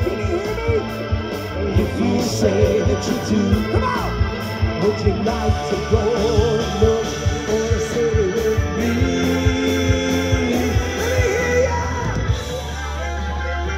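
Live rock band playing: drums with cymbals, bass, electric guitar and keyboards, with a singer's voice over the top.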